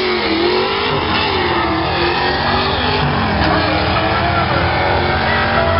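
Drag-racing cars, one a C5 Corvette with a V8, accelerating hard down the strip at full throttle. The engine pitch rises and dips as they pull away.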